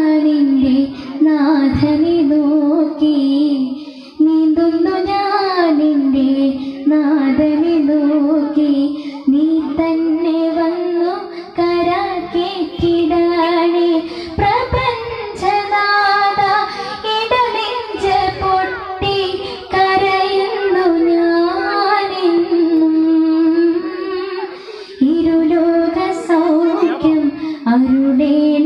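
A young singer singing a Malayalam devotional song into a microphone, the voice amplified, with long held notes ornamented by wavering turns and brief breaths between phrases.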